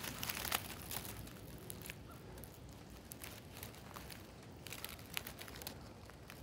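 Dry fallen leaves and twigs crackling and crinkling underfoot on the forest floor in scattered, irregular crackles, the sharpest snap about half a second in.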